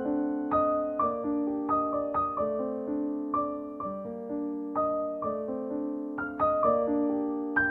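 Solo piano music: a slow, gentle flow of single notes struck about twice a second and left to ring over each other.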